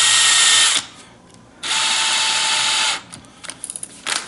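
Power drill running in two short bursts, spinning a turnbuckle to thread plastic ball cups onto it, the first burst stopping under a second in and the second lasting just over a second. A few light clicks follow near the end.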